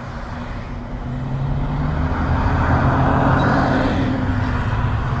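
A motor vehicle passing, its engine hum and road noise growing louder towards the middle and easing off again.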